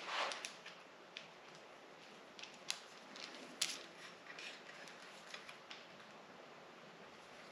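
Faint scattered clicks and light rattles of small screws and plastic parts being handled and fitted by hand, with two sharper clicks near the middle.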